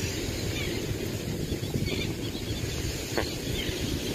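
Outdoor beach ambience: a steady low rumble of wind on the microphone, with faint bird chirps.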